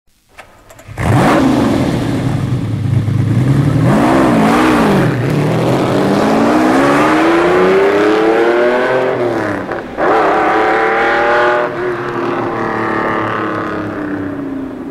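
Lamborghini Countach V12 engine played back from a vinyl sound-effects record. It starts up about a second in and is blipped twice. It then accelerates hard, rising in pitch, with two gear changes, and fades as its pitch falls near the end.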